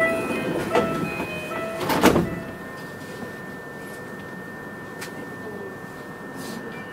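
Sliding doors of an E233 series commuter train closing at a station stop: a repeating chime, then the doors shut with a loud thud about two seconds in, after which the car settles to a steady hum with a thin constant tone.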